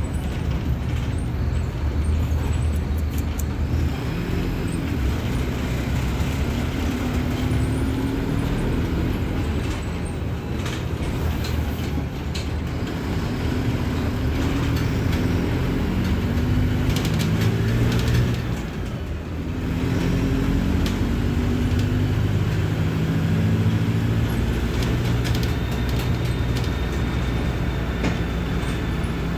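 Diesel engine of a Mercedes-Benz OF-1721 Bluetec 5 bus running under way. Its pitch climbs and drops back several times as it works through the gears, with a brief drop in loudness about two-thirds through before it pulls again.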